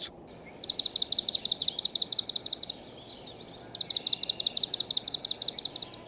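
Swamp sparrow singing: two slow trills of repeated sweet, liquid notes, each about two seconds long, a second apart.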